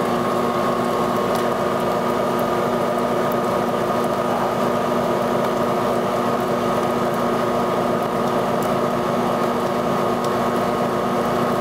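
A steady hum with several held tones, unchanging in pitch and level throughout.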